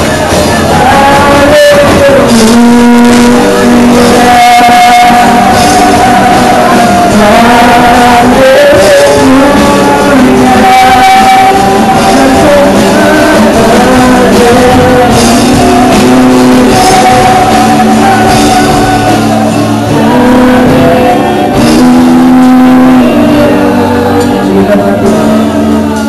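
Loud live worship music: a band playing while voices sing and shout.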